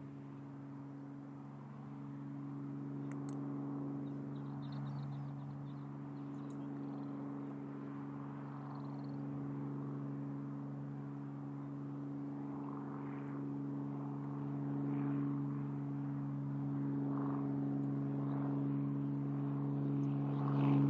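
A steady low engine drone holding several fixed pitches, growing slightly louder towards the end.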